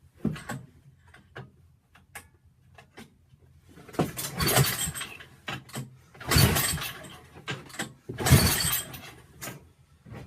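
Toro 3521 snowblower's Tecumseh engine being pull-started after a head gasket replacement: a few clicks, then three hard pulls on the recoil starter about two seconds apart, each about a second long. The engine does not catch.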